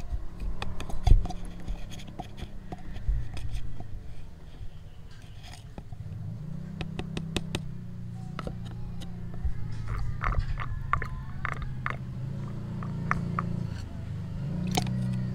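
Irregular light plastic clicks, taps and scrapes from a plastic syringe tube and measuring jug being handled at a brake fluid reservoir while fluid is drawn out, over a steady low hum.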